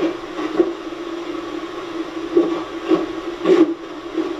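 Small speaker of a 'White Box' spirit-communication device giving out a steady buzzing hum under a hiss, broken by short choppy bursts of sound every half second to a second. The operator takes these fragments for the words 'not just you'.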